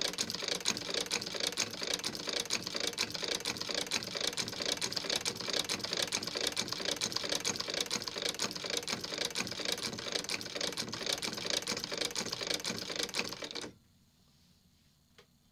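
Singer 29K-71 sewing machine, unrestored but sewing well, stitching through a thick sheet with a fast, even clatter of needle and feed. It stops suddenly near the end.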